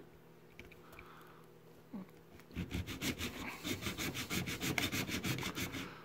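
Small hand saw cutting through the plastic case of an AC-DC power adapter: after a quiet start, quick rasping back-and-forth strokes begin about two and a half seconds in, several strokes a second.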